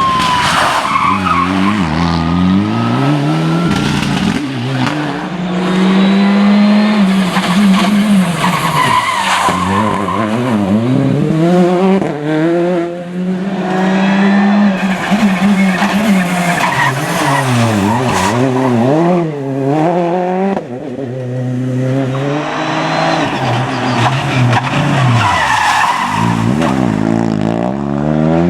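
Rally car engine at full effort, its pitch climbing and dropping again and again through gear changes, lifts and braking, with tyres squealing and skidding.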